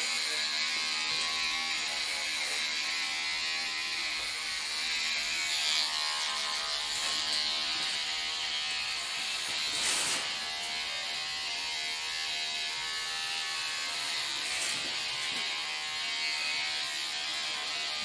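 Electric hair clippers running steadily with a motor buzz while trimming hair.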